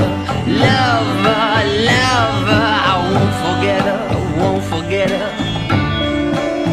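Background music: a song with plucked-string accompaniment and a steady bass line, with a wavering melody line through the middle.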